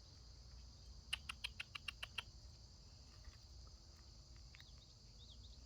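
Chipmunk making a quick run of about ten light, sharp ticks about a second in, over a faint, steady insect trill.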